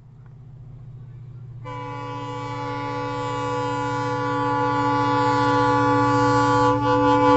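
Express train approaching behind twin diesel locomotives, its engine drone growing steadily louder. From about a second and a half in, the leading WDP4 diesel locomotive sounds one long, continuous multi-tone horn blast that holds to the end.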